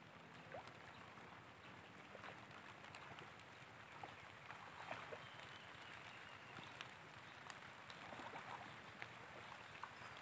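Faint water sounds from shallow muddy water: scattered small drips and splashes over a low steady hiss.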